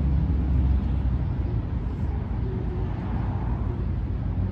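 Low, steady rumble of a motor vehicle's engine running nearby, easing a little after about the first second, over outdoor background noise.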